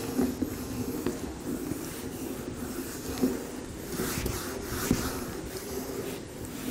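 Board duster rubbing across a whiteboard in soft wiping strokes, over a steady low hum of room noise, with a couple of faint knocks.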